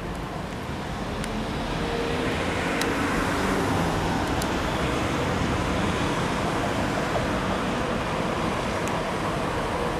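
Vintage two-axle tramcar and trailer running on street track: a steady rumble of wheels on rail with a low motor hum, growing louder about two seconds in as it comes closer, with a few faint clicks.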